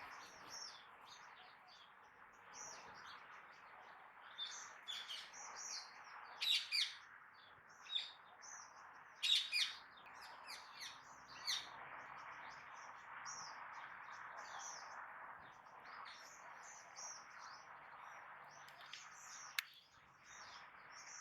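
Birds chirping: many short, high chirps in quick runs over a steady hiss, with a single sharp click near the end.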